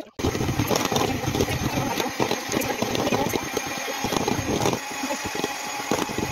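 Electric hand mixer running, its beaters whipping white icing in a metal bowl. The motor cuts in sharply just after the start and runs steadily, with a brief dip about five seconds in.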